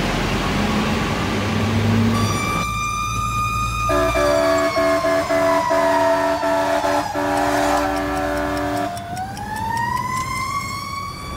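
Fire engine on an emergency run, heard from inside the cab over the engine's running: its siren winds slowly down, a series of short air-horn blasts sounds over it, and then the siren winds back up near the end.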